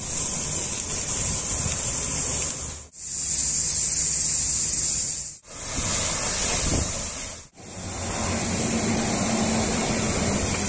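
Steady hissing of a high-pressure washer's water jet, in four stretches broken by short drops to silence. A low hum joins in during the last stretch.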